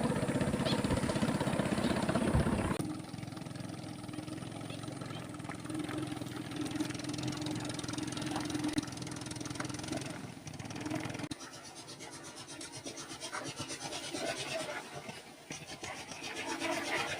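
A small engine running, loud and pulsing for the first few seconds, then fainter and steadier, dropping lower still near the middle.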